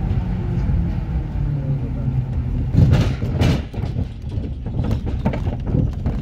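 A vehicle crossing a suspension bridge, heard from inside the cabin: a steady low rumble of tyres on the steel deck, a couple of heavy thumps about three seconds in, then a fast rattling clatter of loose wooden deck planks under the wheels.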